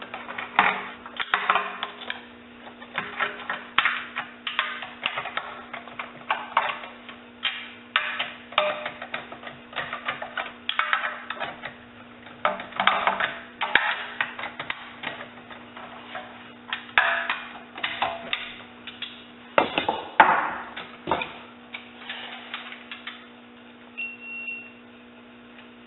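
A ratcheting wrench clicking in short repeated bursts as the transmission pan bolts are run down and snugged, over a steady hum.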